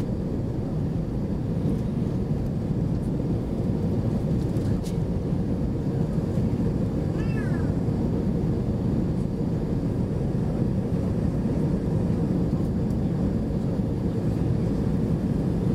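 Steady low rumble of airflow and the CFM56 jet engines inside the cabin of an Airbus A320-214 descending on approach, with a faint steady hum running through it.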